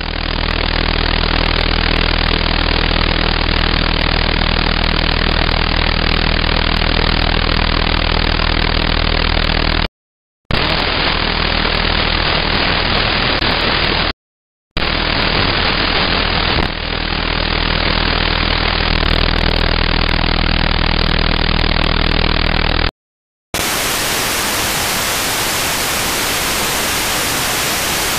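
Radio interference demodulated by a software-defined radio in AM mode: a steady hiss cut off above about 5 kHz, with a low buzzing hum under it. The uploader blames this interference on cheap battery chargers or LED strips in a neighbouring building. The audio drops out briefly three times, and about 23 seconds in it changes to full-range wideband FM hiss.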